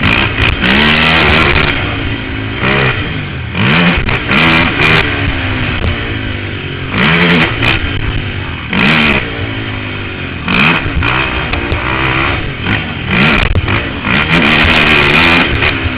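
Can-Am DS450 ATV's single-cylinder four-stroke engine revving hard and dropping back over and over, roughly every one to two seconds, as the throttle is opened and shut through gear changes while racing.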